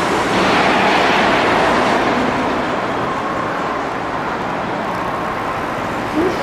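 A car driving away, its engine and tyre noise loudest in the first couple of seconds and then easing off as it recedes.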